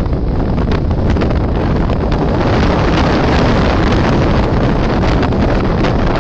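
Strong wind buffeting the microphone on the deck of a sailing ship under way in rough sea: a loud, steady rushing with frequent crackling gusts.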